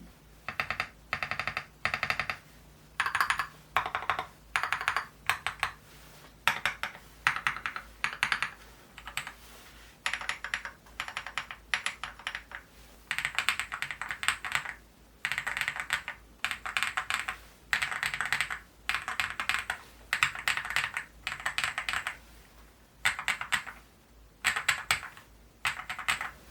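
Typing on a Leobog Hi75 full-aluminum mechanical keyboard fitted with KTT Red Wine switches and XDA-profile keycaps: short runs of keystrokes separated by brief pauses.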